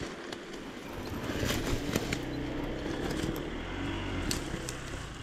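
Off-road enduro motorcycle engine running, its pitch shifting a little, growing somewhat louder about a second in, with scattered sharp clicks and knocks over it.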